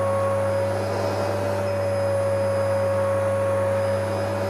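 A loud, steady droning hum with one held tone that wavers slightly over a low buzz and a hiss, cutting in and off abruptly like a spliced-in clip.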